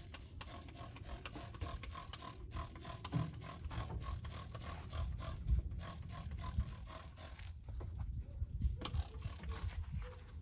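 Hand trigger spray bottle of degreaser being squeezed over and over: a quick run of spritzing clicks, with short pauses about two and a half seconds in and again near eight seconds.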